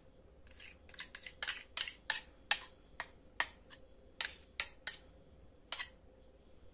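Metal spoon and ladle clinking against a stainless steel pot and a glass baking dish as thick custard is ladled out. It is an irregular run of sharp clinks over about five seconds.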